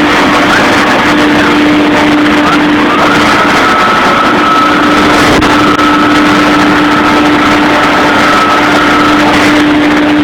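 CNC router running: a loud, steady machine noise with a steady whine throughout, and a fainter, higher tone that joins about three seconds in and stops near the end.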